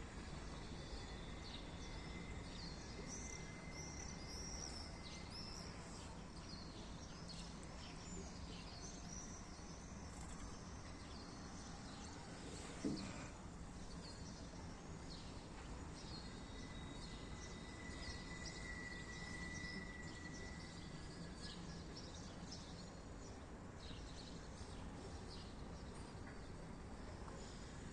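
Swallows twittering: a scatter of short, high chirps over a steady low background noise. A single sharp knock about thirteen seconds in.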